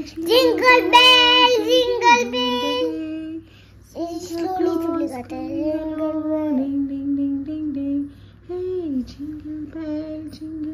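A young girl singing in a high child's voice, holding long notes, with short pauses for breath twice.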